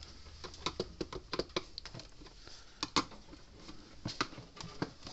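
Screwdriver prying and scraping at the plastic housing of a Speedrite 980 electric fence charger. The tool and the case's clips give a dozen or so irregular sharp clicks and taps.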